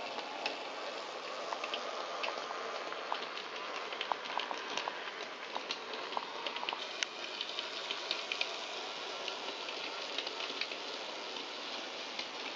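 N gauge model train running on sectional track: a steady whirring hiss from the little locomotive's motor and running gear, dotted with irregular sharp clicks of the wheels over the rail joints.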